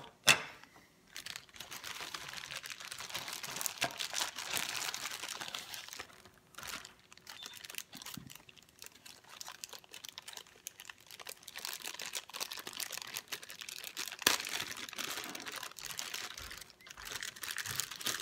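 Clear plastic bags crinkling as they are handled and pulled open around a small plug wrapped in plastic. A sharp click comes just after the start and another about two-thirds of the way through, with quieter rustling between the bursts of crinkling.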